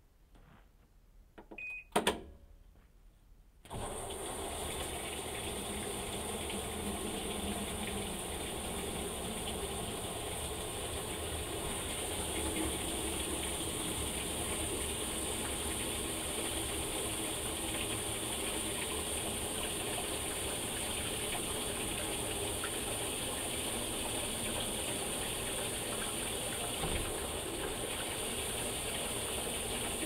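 Insignia top-load washing machine starting its quick wash: a short beep and a sharp click, then about four seconds in the water inlet opens and water rushes steadily into the tub.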